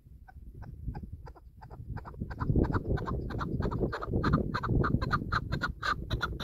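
Chukar partridge calling: a run of short clucking notes that speeds up and grows louder, reaching about six a second near the end, over wind rumbling on the microphone.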